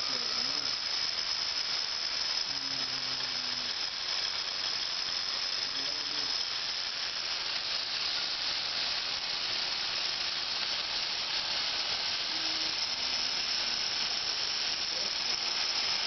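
Lego big square baler model running: its small electric motors and plastic gearing give a steady high-pitched whine over a hissing mechanical noise.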